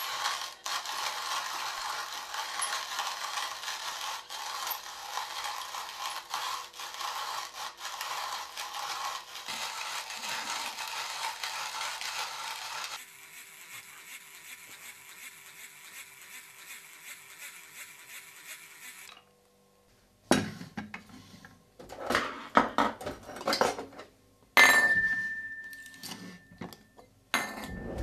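Hand-cranked wooden box coffee grinder grinding beans steadily. About thirteen seconds in the grinding turns quieter and smoother, then stops. After a short pause come knocks and clinks of kitchen utensils and dishes, one clink ringing on briefly.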